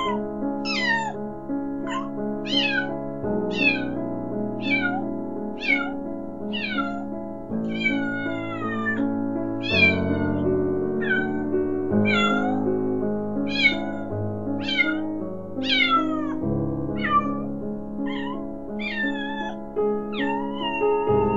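Tiny kitten meowing over and over, about once a second, each high cry sliding down in pitch: the frantic distress cries of a stranded kitten. Background music with sustained chords runs underneath.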